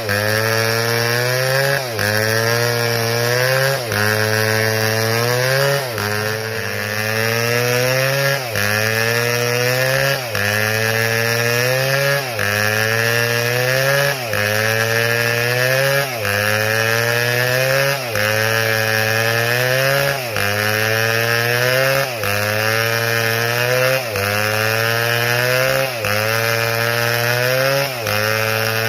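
Two-stroke chainsaw running hard while cutting wood, its pitch sagging and recovering in an even cycle about every two seconds.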